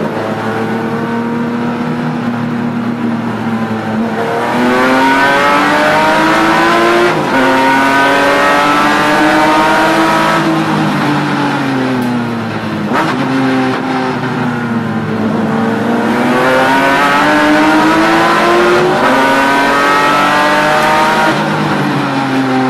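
BMW E36 M3 race car's straight-six engine heard from inside the cabin. It runs fairly steady for the first few seconds, then is pushed hard about four seconds in. Its pitch climbs, drops back at upshifts and when the throttle eases around the middle, and climbs again.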